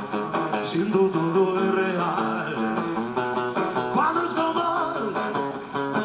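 A man singing a rock ballad to his own acoustic guitar accompaniment, the strummed and picked guitar carrying throughout.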